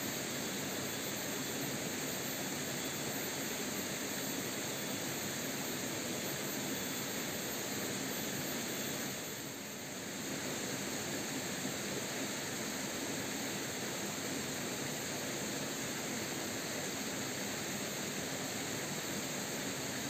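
Steady rushing of a rocky forest stream, an even hiss of flowing water with a brief dip in level about halfway through.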